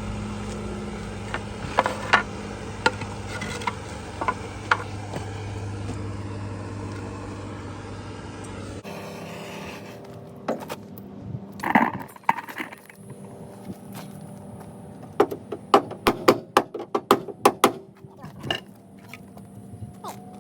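Scattered metallic clinks and taps over a steady low hum; after an abrupt change about nine seconds in, a quick run of sharp taps and clicks, like hand tools knocking on car body sheet metal.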